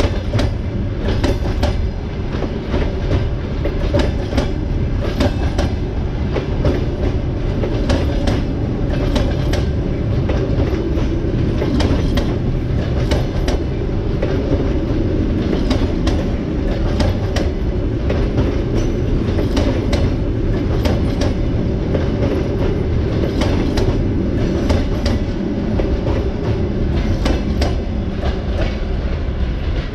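Sleeper coaches of a departing long-distance passenger train rolling past close by: a steady rumble of wheels on rail, with repeated clickety-clack clicks as the wheelsets cross rail joints.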